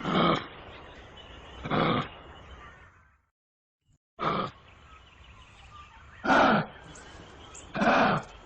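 Kangaroo calling: five short calls of about half a second each, one every second and a half or so, broken midway by a moment of silence.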